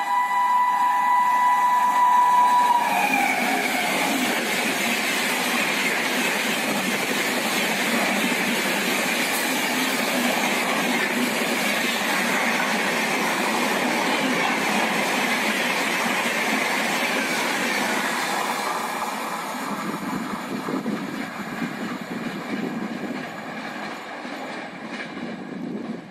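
Electric-hauled express train passing through a station at speed. Its horn sounds as it approaches and drops in pitch as the locomotive goes by about three seconds in. The coaches then rush past with rail clatter, and the sound fades over the last several seconds as the train recedes.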